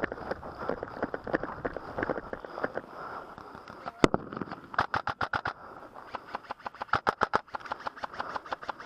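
Airsoft guns firing: a single sharp crack about four seconds in, then two short rapid bursts of clicks at about ten shots a second. Softer irregular knocks come before them.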